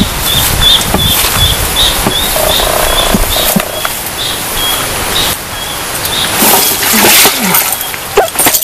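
An animal's short, high chirps at one pitch, repeated about three times a second and fading after about six seconds, over rustling and a few knocks, with a sharper knock near the end.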